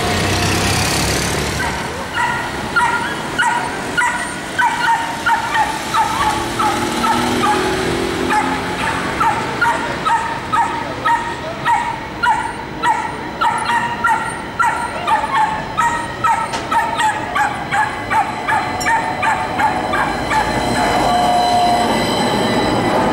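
A dog barking repeatedly in short sharp barks, about two a second, over street noise. Near the end an AnsaldoBreda Sirio tram's wheels start to squeal as it rounds the curve close by.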